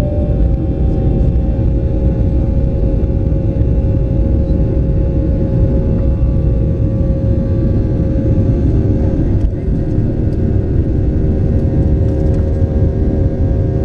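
Boeing 737-800's CFM56-7B turbofan engines at takeoff thrust, heard inside the cabin from a window seat beside the engine: a loud, steady roar with a steady whine over it. The deep rumble of the takeoff roll runs beneath it.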